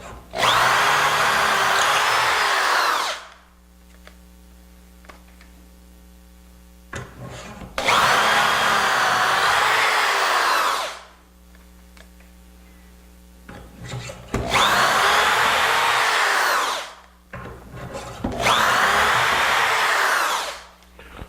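Electric drill boring dowel holes into the edge of a wooden board through a doweling jig: four runs of about three seconds each, separated by pauses with small knocks.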